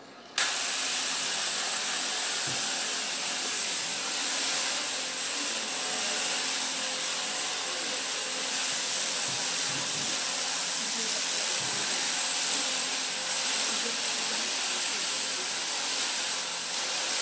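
Electric sheep shears switched on about half a second in, then running steadily with a high whine as the sheep is shorn.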